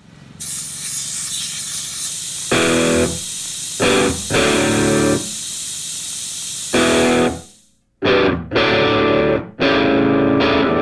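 Rock music with distorted electric guitar: a hissing swell broken by a few loud chord hits, a brief break just before eight seconds in, then short, choppy chords.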